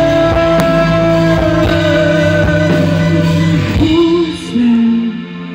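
Live rock band playing amplified guitar music, with a long held note over the full band. About four seconds in, the sound drops to a quieter, sparser passage.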